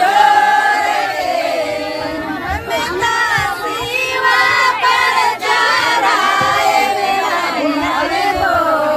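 A group of women singing together unaccompanied, several voices overlapping in long, wavering held notes.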